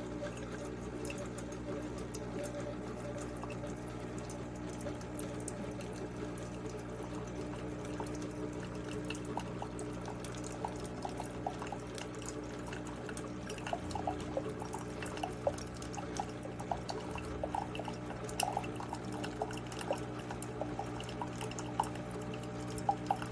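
Cuisinart SS-10P1 single-serve coffee maker brewing: a steady hum under coffee pouring and dripping into the cup, with small pops and clicks that grow more frequent in the second half.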